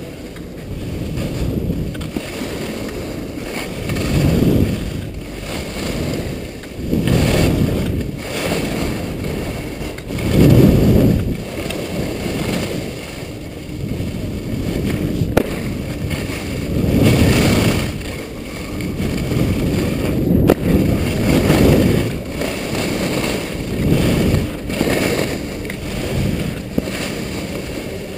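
Skis scraping and carving over snow through a run of turns, the noise swelling with each turn about every two to three seconds, with wind rushing over the microphone.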